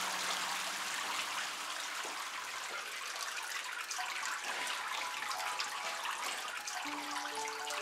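Red wine dripping and splashing steadily into the collecting tray under a wine press: a continuous patter of many small drops. A few notes of music come in near the end.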